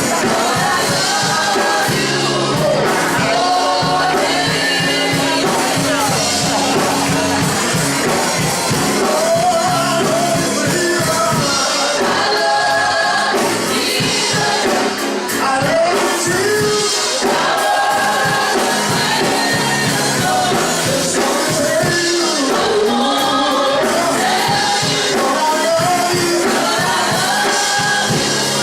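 Gospel music: a song sung over steady instrumental accompaniment.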